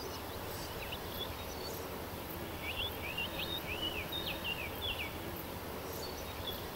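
Outdoor ambience with a steady faint hiss, and a small bird giving a quick run of about six short chirps in the middle.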